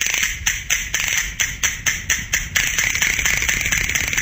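Sharp percussive clicks in a steady rhythm, about five a second, over a steady hiss, leading into the song.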